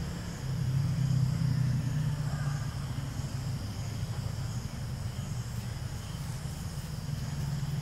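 Outdoor ambience: a steady low rumble under a faint even hiss, with no distinct event standing out.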